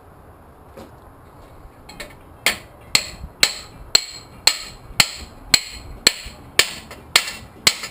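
Hammer striking steel, driving stuck parts out of a Pontiac 455 V8 engine block. After a quiet start, evenly paced blows begin about two and a half seconds in, roughly two a second, each with a short metallic ring.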